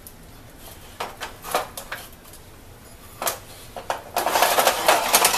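A disposable aluminium foil roasting pan being handled with oven mitts: a few scattered knocks, then about a second before the end a dense crinkling and rattling of thin foil as the pan is gripped and turned.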